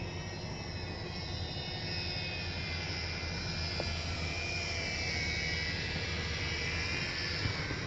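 A sailing yacht's inboard diesel engine running steadily while motoring at low speed. There is a steady low hum, with a higher whine above it that wavers slowly in pitch.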